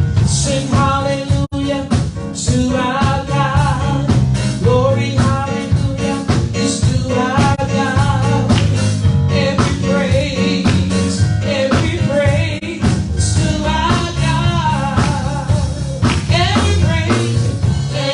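Upbeat gospel praise music with a steady drum beat, bass and voices singing.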